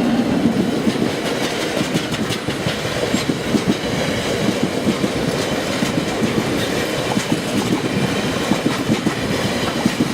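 Freight train of oil tank wagons rolling past at a level crossing, wheels clattering in a steady run of irregular clicks over the rail joints above a continuous rumble.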